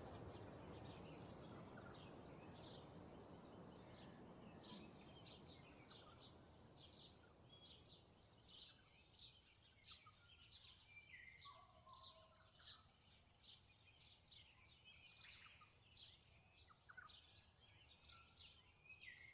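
Faint outdoor birdsong: many short chirps and calls from several birds, over a low wind rush that fades away over the first several seconds.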